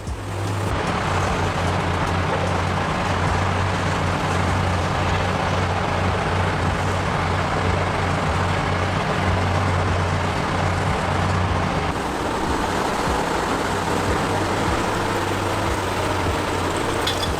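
Barge-mounted excavator's engine running steadily: a low drone under a wide, noisy hiss. The low drone drops away about twelve seconds in while the hiss goes on.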